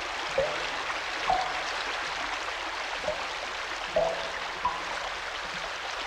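Steady hissing rush of water pouring down through a funnel-shaped shower, with a few short, high chirps scattered through it.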